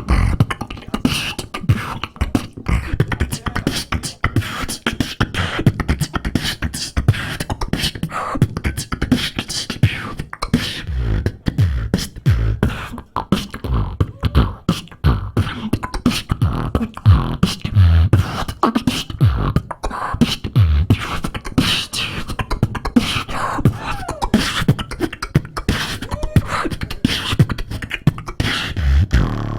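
Solo beatboxing through a microphone and PA: a fast run of vocal kick, snare and hi-hat sounds with deep bass hits, keeping a steady beat.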